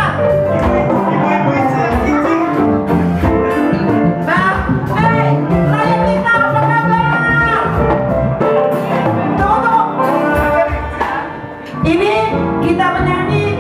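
Live band music with singers singing into microphones over it, amplified through the PA.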